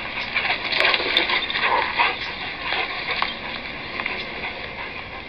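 Crackly, hissy outdoor sound from a home video of dogs running in a yard, played back through a laptop speaker.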